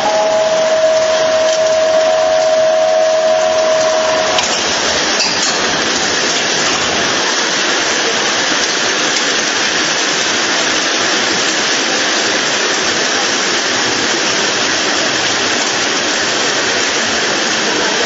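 Steady hiss of running industrial food-frying equipment, with a motor's steady whine for the first four seconds or so that then cuts off.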